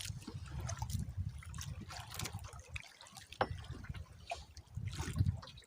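Sea water trickling and lapping around a small boat, with scattered light knocks and clicks.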